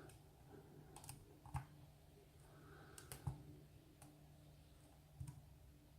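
Faint, scattered clicks and small taps of a lock pick and tension wrench working the pins inside a cylinder lock, about one every second or so.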